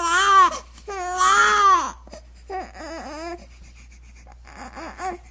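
Baby crying: two loud, long wails in the first two seconds, each rising and falling in pitch, then shorter, quieter cries with gasps between them.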